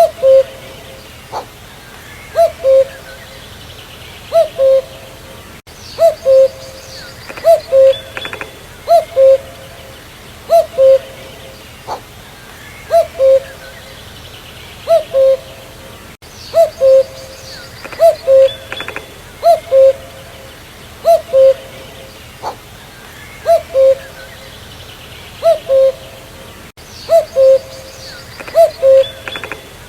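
Common cuckoo (Cuculus canorus) calling its two-note "cu-coo", the second note lower than the first. The pair repeats over and over, about every one and a half to two seconds, with faint higher chirps from other birds behind it.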